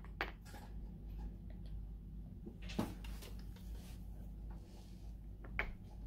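Faint room hum with a few soft knocks and rubs as a spiral-bound sketchbook is picked up and tilted by hand, the clearest knock a little before the middle and another near the end.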